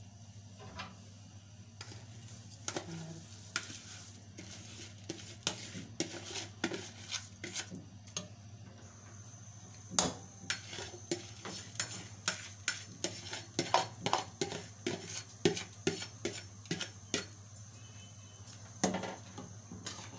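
Metal ladle stirring rice into broth in a metal cooking pot, knocking and scraping against the pot in a run of irregular clicks. The clicks come closer together and louder from about halfway through, over a steady low hum.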